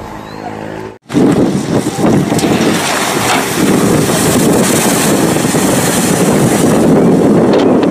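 A bus engine running for about a second, then, after a sudden cut, a loud, steady rush of water as an amphibious bus ploughs into and through the river, throwing spray, with wind buffeting the microphone.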